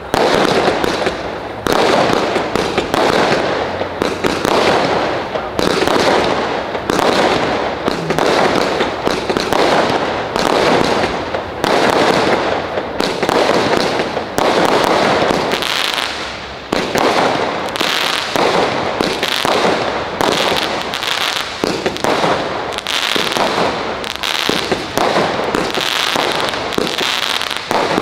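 Fireworks display: aerial shells bursting one after another, a sharp bang every second or two, each trailing off, with crackling effects building toward the end.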